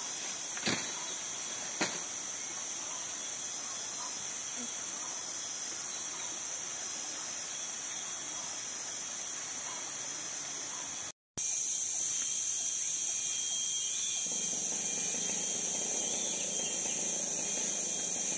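Tropical forest insect chorus: a steady, high-pitched drone. A couple of faint clicks come in the first two seconds. About eleven seconds in the sound drops out for a moment and returns slightly louder, and a few seconds later a low rushing noise joins it.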